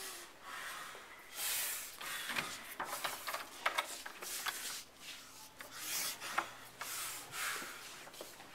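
Rubbing and handling noise on a handheld camera's microphone as the person holding it walks, coming in hissy swells about once a second, with a few sharp clicks.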